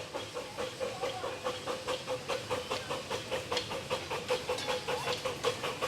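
Zoo miniature railroad train running past: a rapid, even clacking about five or six times a second over a steady tone.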